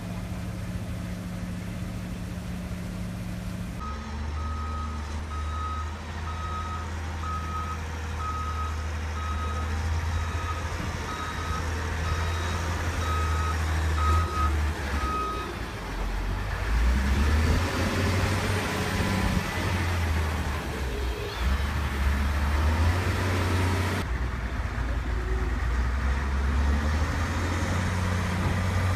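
Caterpillar wheel loader's diesel engine running, with its reversing alarm beeping steadily about once a second for some twelve seconds, starting a few seconds in. After the beeping stops, the engine runs louder as the loader drives forward.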